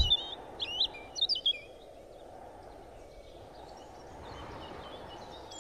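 Small birds chirping in short, quick calls over a soft, steady background hiss. The calls come thickly in the first second or two, then thin out to a few faint chirps.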